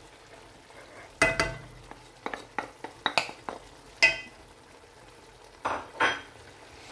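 Several sharp knocks and clinks, some with a brief ring, as a ceramic plate of spice powders is tapped against an aluminium pan to tip the spices in; the loudest comes about four seconds in. Minced meat frying gives a faint sizzle underneath, and a wooden spoon scrapes through the mince near the end.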